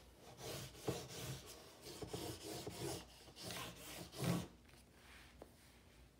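Drawing strokes rubbing across paper pinned on a corkboard: about eight short scratchy strokes over four seconds, the loudest last, then they stop.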